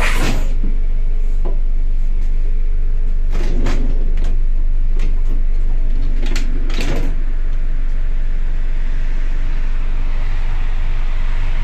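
ER2 electric train running, with a steady low hum and rumble and a few sharp knocks and clatters a few seconds in.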